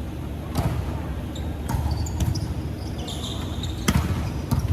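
Indoor court game sounds: sharp hits or knocks at irregular intervals, about five of them, with brief high squeaks like sneakers on the floor.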